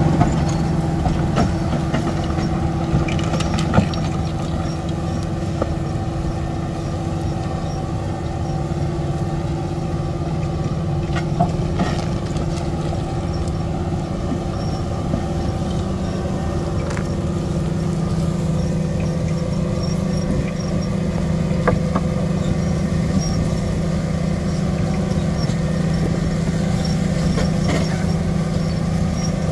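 John Deere tractor's diesel engine running steadily under load as it drags a deep plough through the ground, uprooting old grapevine stumps. A few sharp knocks stand out now and then.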